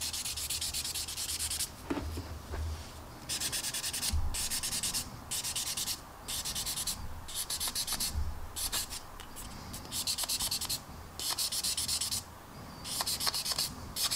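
Sanding stick rubbed in short repeated strokes over a clear plastic model canopy, a dry hiss roughly once a second with brief pauses between strokes, sanding out the canopy's moulded centre seam line.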